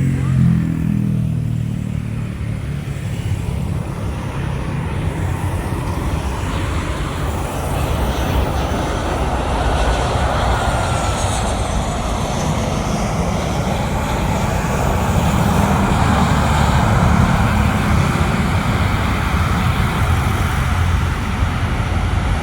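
Jet airliner engines running, a steady roar that grows somewhat louder in the second half, with a faint sliding whine about halfway through.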